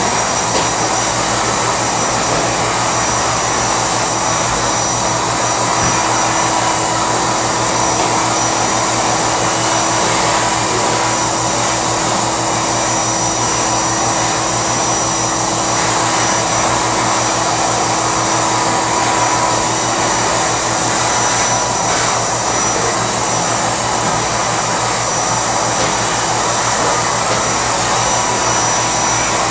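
A drum-type wet/dry vacuum cleaner running steadily: one continuous, unchanging motor-and-airflow noise.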